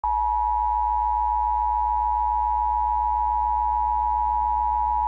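Emergency Alert System attention signal: a steady, loud two-tone beep (853 and 960 Hz) that begins abruptly, over a low steady hum.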